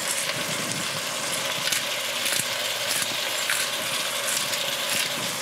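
Hand pepper mill being twisted to grind peppercorns: a continuous gritty ratcheting crunch, over food sizzling in the pot below.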